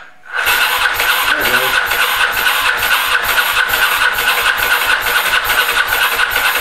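Ducati ST4's L-twin engine being cranked over on its electric starter, jumpered at the starter solenoid, starting about half a second in: a steady starter whine with about three even pulses a second as the engine turns over. It is being spun to pump oil and build up oil pressure in an engine that has not been turned over in a long while.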